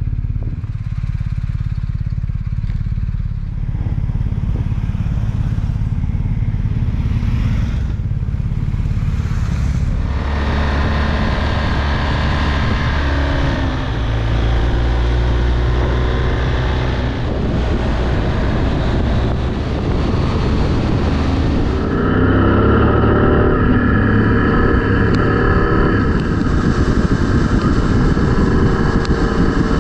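BMW GS adventure motorcycle's boxer-twin engine running under way, heard from the bike itself. A low steady drone for the first ten seconds, then the engine note grows fuller and louder as it pulls harder, and higher again about two-thirds of the way through.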